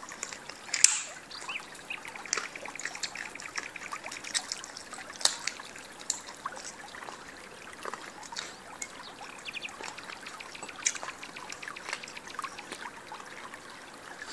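Mouth sounds of steamed chicken feet being eaten: wet chewing and sucking with many scattered sharp clicks and a few quick rattling runs.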